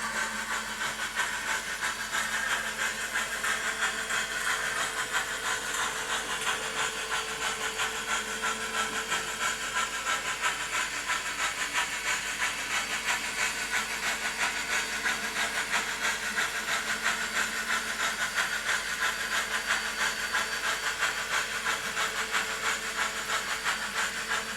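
Steam locomotive sound of an HO scale Heisler model's ESU LokSound 5 decoder: steady hissing with rapid, regular exhaust chuffs and a constant hum underneath, cutting off suddenly at the end.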